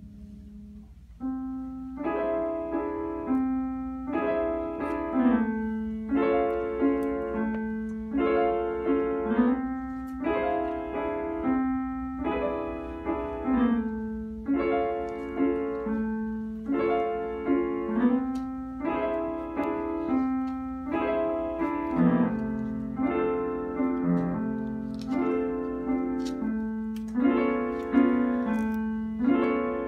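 Yamaha grand piano being played. A faint held note fades at first; about a second in, a passage of repeated chords starts, struck in groups about once a second, each group ringing out and decaying.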